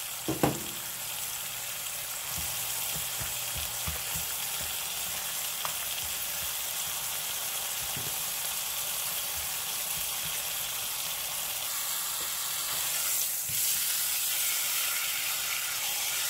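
A slice of smoked picnic ham sizzling steadily in hot fat and drippings in a nonstick frying pan, nearly done. A single sharp knock sounds about half a second in.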